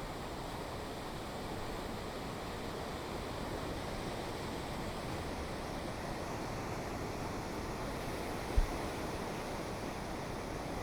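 Gentle ocean waves lapping against the shore in a steady wash of surf. A single brief low thump comes near the end.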